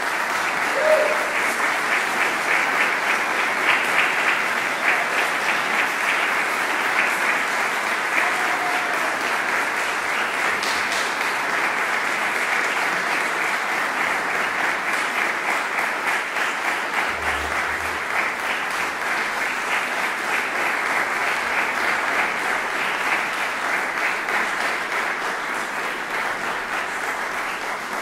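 Audience applauding steadily, a dense even clapping that holds at much the same level throughout.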